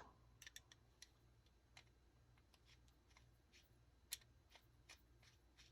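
Near silence with a scatter of faint clicks and taps from small knife screws and a driver being handled, the sharpest click about four seconds in, over a low steady hum.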